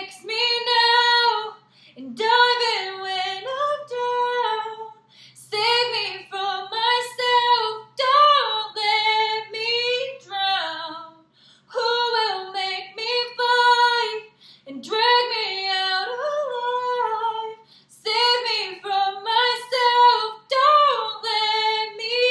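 A woman singing a slow ballad unaccompanied, in sung phrases with long held notes and short breaths between them.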